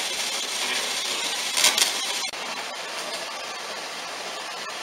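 A steady hiss, with a brief louder rush about a second and a half in.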